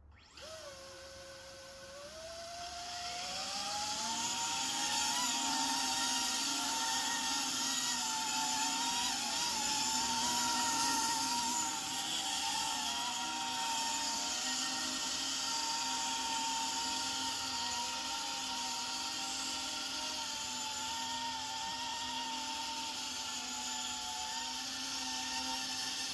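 Electric motors and propellers of a small VTOL model airplane spinning up. The whine rises in pitch over the first few seconds as it lifts off into a hover, then holds steady, wavering slightly in pitch as the throttle is worked.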